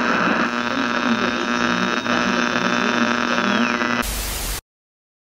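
Electrical buzzing hum with faint high whining tones. About four seconds in it gives way to a short burst of TV static hiss, which cuts off suddenly.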